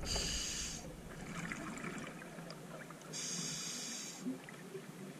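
Scuba diver breathing on a regulator, recorded underwater through the camera housing: two hissing inhalations about three seconds apart, with faint bubbling between them.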